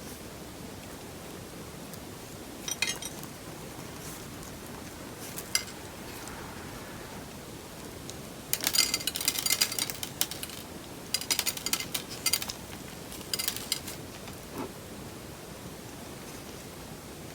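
Slime being handled: three bursts of quick, crisp crackling clicks about halfway through, with a few single clicks earlier, over a steady hiss.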